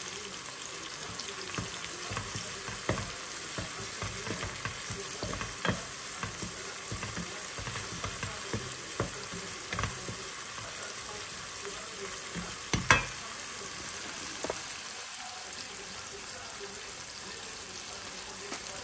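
Spice masala with freshly added ginger sizzling in hot oil in a pan while it is stirred, with scattered scrapes and knocks of the spatula against the pan; the loudest knock comes about thirteen seconds in.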